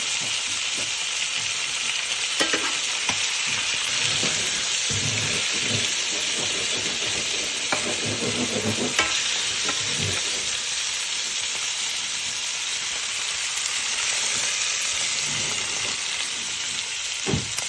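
Sardines frying in hot oil in a pan, a steady sizzle, with a few knocks of a utensil against the pan, around the middle and near the end.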